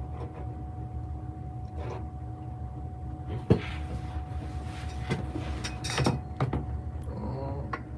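Handling noise of a phone being moved about: a low rumble with a few light knocks and clicks, the sharpest about three and a half seconds in. A faint steady high hum sits underneath.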